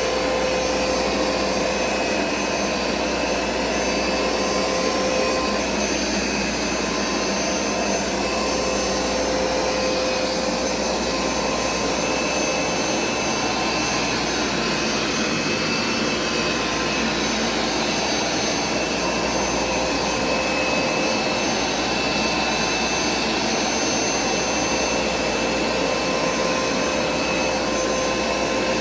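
Hoover SmartWash carpet cleaner running steadily on carpet, its suction motor giving a constant whine over a rushing hiss.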